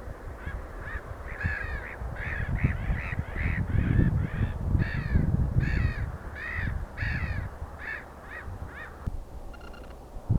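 A crow cawing in a fast series of about twenty calls, two or three a second, stopping about nine seconds in, with wind rumbling on the microphone underneath. A few short, even-pitched pips follow near the end.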